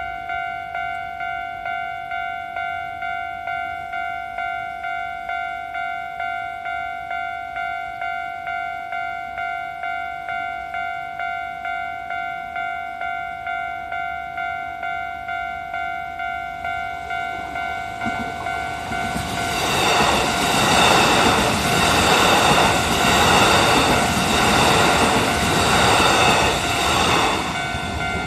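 Japanese level crossing's electronic warning bell ringing in a steady repeating pattern, about two strokes a second. About eighteen seconds in, a Kintetsu train rushes through the crossing, its wheels clattering over the rail joints and drowning out the bell, then easing off near the end.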